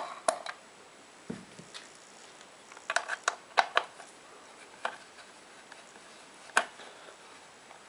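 A handful of light, sharp clicks and taps at irregular intervals, several close together about three seconds in: hands handling a motorcycle headlight assembly and its fittings.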